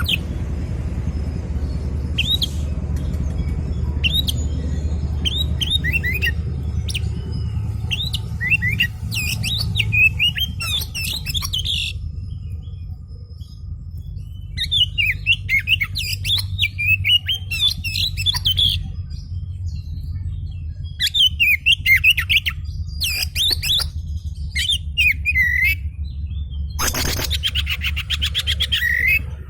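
An oriental magpie-robin (kacer) of the black-chest-banded 'kemben' type sings in an agitated, aggressive mood: phrases of quick sliding whistles and chattering notes with short pauses between them. Near the end comes a dense buzzy rattle. A steady low hum runs underneath.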